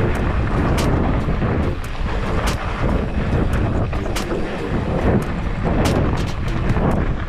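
Polygon Siskiu T8 mountain bike riding a rough trail: a steady rumble of tyres and wind on the microphone, broken by frequent sharp clicks and rattles from the bike and ground.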